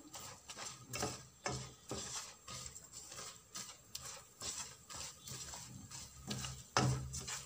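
Wooden spoon scraping and tapping against a nonstick pan while desiccated coconut is stirred into thick sugar syrup. The scrapes come unevenly, about two a second, with a louder knock near the end.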